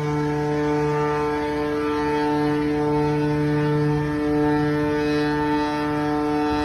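A ship's steady low drone: one unbroken low tone with many overtones, holding level throughout.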